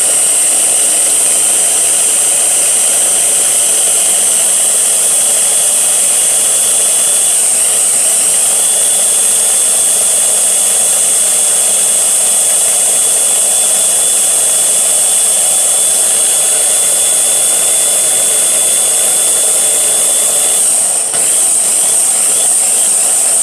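Small Ninja blender's motor running at full speed with a steady, high-pitched whine, held down by hand while it purées onions, zucchini, tomatoes and tahini into a sauce. The sound dips briefly about 21 seconds in, then picks up again.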